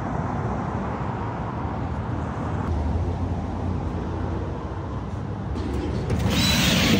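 Steady rumble of a vehicle in motion, with a louder hiss rising about six seconds in.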